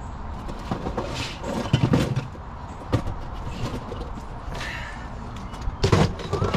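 Plastic parts bins being handled and set into a metal truck compartment: scattered knocks, scrapes and clatters, the loudest about two seconds in and again near the end, over a steady low rumble.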